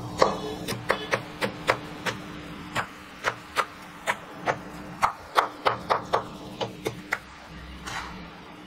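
Chef's knife finely chopping amaranth greens on a wooden cutting board: sharp, irregular knocks of the blade on the board, about two or three a second, which stop a little before the end.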